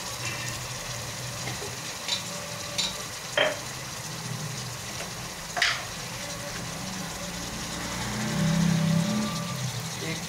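Sliced onions sizzling steadily in hot oil in a pot under a heap of tomatoes and ground spices, with a few short sharp clicks. A low hum swells for about a second near the end.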